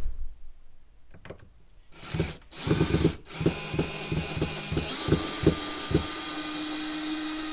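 Cordless power driver running in reverse, backing a wood screw out of the roof eave. The motor whine starts about two seconds in, with a run of clicks over the next few seconds, then runs on as a steady whine.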